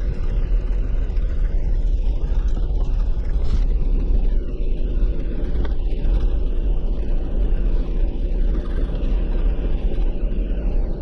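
Jeep driving on a rough forest trail: a steady low rumble of engine and road noise.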